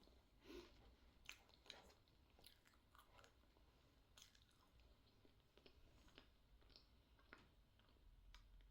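Faint close-up chewing of a soft sakura-flavoured tart pastry: quiet wet mouth sounds with scattered small clicks, no crunch.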